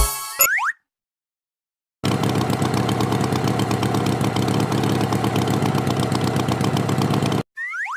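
An engine idling steadily, a rapid even chugging, starting cleanly about two seconds in and cutting off shortly before the end.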